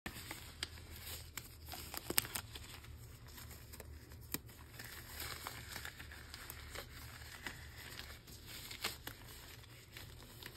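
Thin disposable gloves rustling and crinkling as they are pulled on and the fingers worked into them, with sharp little snaps now and then as the material is stretched.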